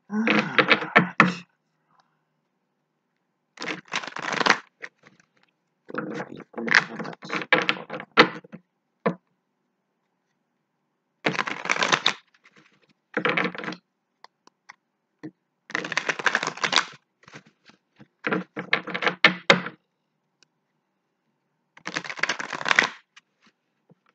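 A deck of tarot cards being shuffled by hand in short clattering bursts of about a second each, repeated some eight times with pauses in between.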